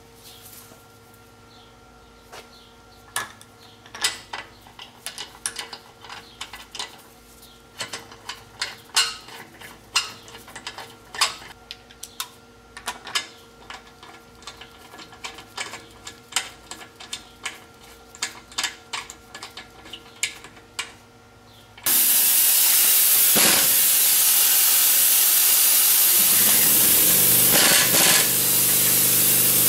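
Metal clicks of lug nuts being threaded onto the wheel studs by hand. About two-thirds of the way in, an air impact wrench fitted with a torque stick starts suddenly and runs loudly, hissing and hammering the lug nuts down to a set 90 ft-lb.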